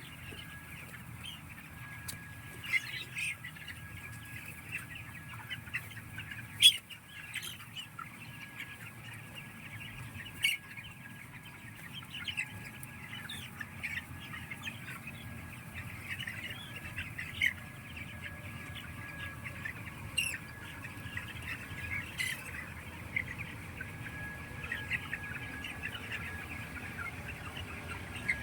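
Many chickens in a poultry house calling throughout: a constant chorus of short chirps and clucks, with a dozen or so sharper, louder squawks scattered through it, over a steady low hum.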